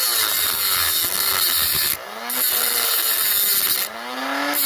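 Dremel rotary tool with an abrasive cutoff wheel grinding a slot into a copper PEX crimp ring: a motor whine that shifts in pitch under load over a steady grinding hiss. The grinding hiss cuts out briefly about two seconds in and again near the end, while the motor keeps running.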